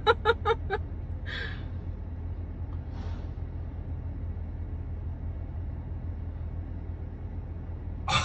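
A steady low vehicle rumble, with a brief voice sound at the start and two short hisses, about one and three seconds in.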